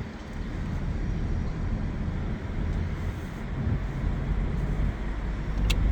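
A car on the move, with a steady low rumble of road and engine noise and a single light click near the end.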